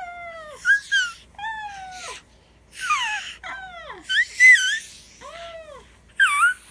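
A cat meowing again and again: about ten short meows, most falling in pitch, a few higher and wavering.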